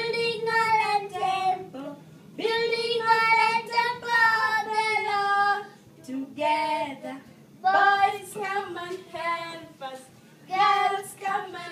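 A woman and a small child singing a children's action song together, in phrases a few seconds long with short breaks between them.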